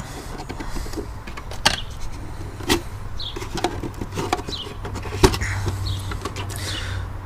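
Parts of a car's air intake being handled: a series of sharp plastic clicks and knocks with short scrapes, the loudest knock about five seconds in, over a steady low hum.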